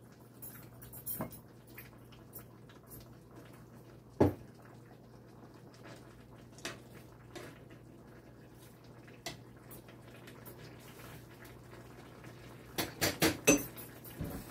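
Cooking utensil knocking and clicking against a skillet while stirring vegetables, with one louder knock about four seconds in and a quick run of clatters near the end. A steady low hum runs underneath.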